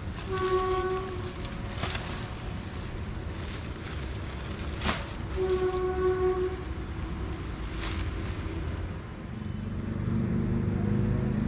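A horn sounds twice, about five seconds apart. Each blast is about a second long and holds one steady pitch. Near the end a vehicle engine grows louder in the background.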